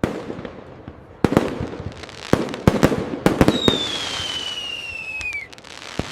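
Fireworks display: a burst, then a quick run of sharp bangs over a crackling hiss. From about halfway a single whistle falls steadily in pitch for about two seconds, and one more bang comes near the end.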